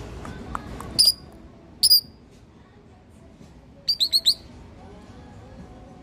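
Caged lovebirds giving sharp, high-pitched chirps: one call about a second in, a double call a second later, then a quick run of four calls around the four-second mark.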